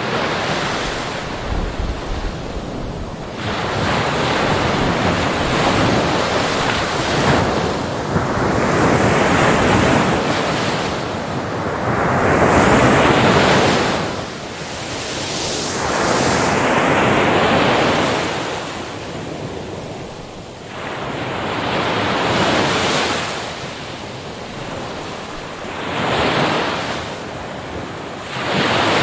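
Ocean waves breaking on a beach, the surf swelling and falling back every few seconds.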